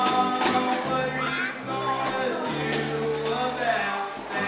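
Live band music: a man singing a tune while strumming an electric guitar, over sustained electric bass notes and drum and cymbal hits.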